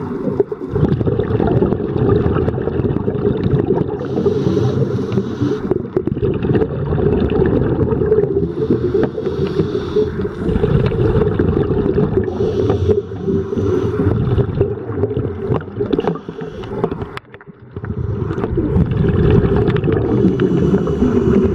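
Muffled underwater noise of water and scuba bubbles heard through a dive camera's housing, a steady low rumble with swells of hiss every few seconds. It drops away briefly about seventeen seconds in.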